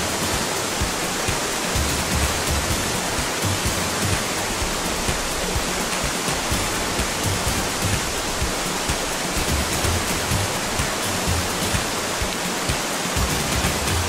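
Mountain river rapids and waterfall: a steady rush of whitewater.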